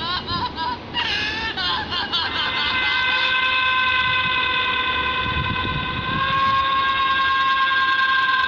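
Scary sound effects playing from a smartphone's speaker. First comes a wavering, warbling sound. From about two and a half seconds in, a long, steady high-pitched tone is held.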